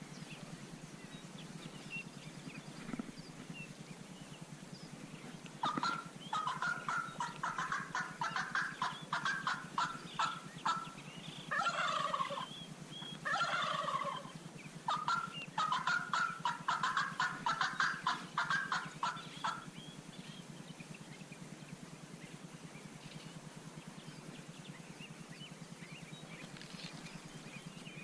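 Several wild turkey toms gobbling over one another in a run of rapid rattling gobbles that starts about six seconds in and stops near twenty seconds. Two louder, falling calls come in the middle.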